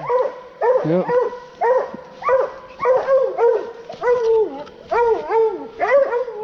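Coonhounds barking over and over in short, ringing barks, about three a second, the steady barking of hounds that have treed a raccoon.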